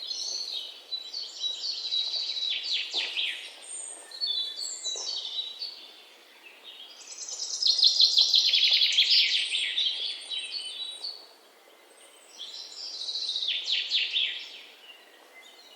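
A songbird singing three long phrases of rapid, high, downward-sweeping notes, with short pauses between them.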